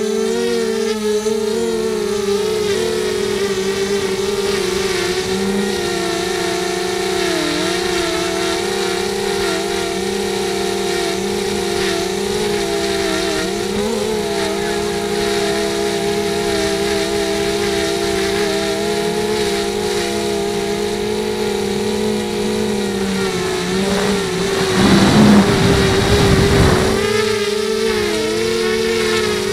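FPV racing quadcopter's electric motors and propellers whining steadily, the pitch wavering slightly as the throttle changes. Near the end, a louder rough rushing noise covers it for about two seconds.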